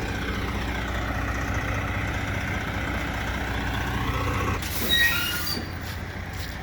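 Engine of heavy machinery or a truck running steadily, with a brief hiss and high squeal about five seconds in.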